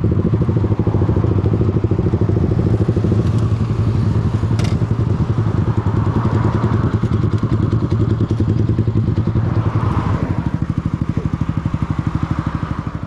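Small motorcycle engine idling steadily at a standstill, with one sharp click about four and a half seconds in.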